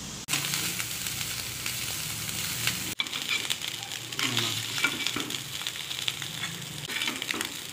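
Cooking oil sizzling as food fries in a pan. After a brief break about three seconds in, small shrimp sizzle in a wok while a metal spatula stirs and scrapes through them, with many small clicks.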